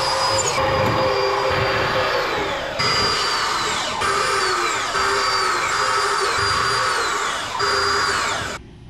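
Power drill driving self-tapping screws into sheet-steel seams, in a string of short runs that each wind down with a falling whine. It stops abruptly near the end.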